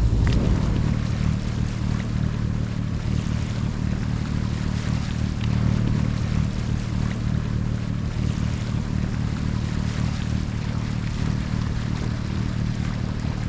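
Sailboat's engine running steadily as the boat motors along, with a hiss of wind and water over it.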